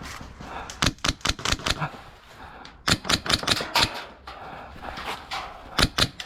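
Airsoft gun firing three rapid bursts of sharp cracking shots: about a second in, around the middle, and a short one near the end.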